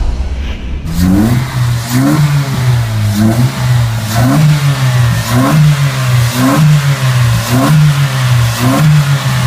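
A Honda City's four-cylinder i-VTEC engine, fitted with an aftermarket cone-filter air intake and a full exhaust, idling while the throttle is blipped about once a second. Each blip is a short rise in revs that drops back to idle. A brief whoosh fades out in the first second.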